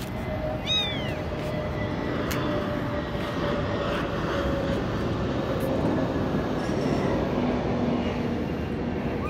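A young kitten gives one short, high meow about a second in, over a steady background rumble with a faint low hum.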